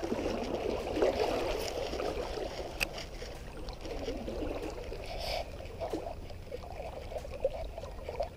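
River water gurgling and flowing close by, around a wading angler, with a brief click near the middle.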